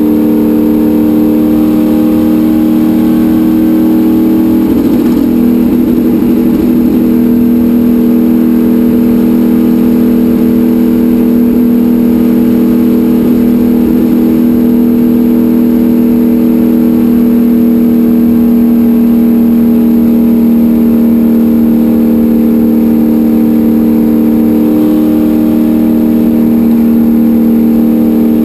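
Racecar engine running hard at speed, heard loud from inside the car, its pitch holding nearly steady with only slight shifts about five seconds in and again near the end.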